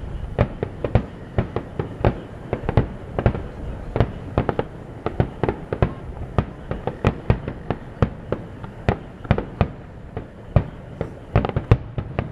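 Aerial fireworks shells bursting in a rapid, irregular barrage of sharp bangs, several a second, over steady low background noise.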